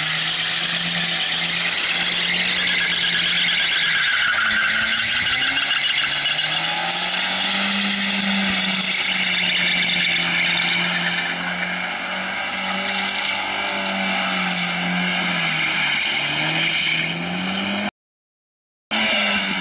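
Car doing a smoky burnout and donuts: the engine held at high revs, its pitch swelling and sagging as the throttle changes, over a continuous screech of spinning tyres. The sound cuts out for about a second near the end.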